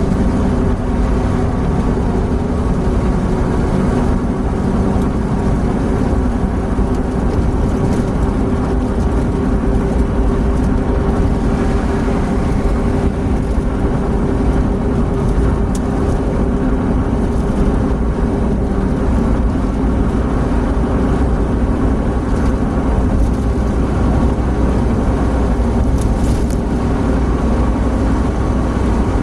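Opel Blazer SUV heard from inside the cabin at highway speed: the engine running steadily under load with road and wind noise, as the car gathers speed slowly from about 96 to 106 km/h.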